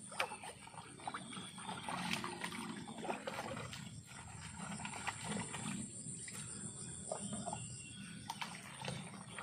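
Night-time rice-field ambience: a steady high insect drone, with animal calls pulsing low underneath, most likely frogs, and scattered sharp clicks. The high drone drops away about eight seconds in.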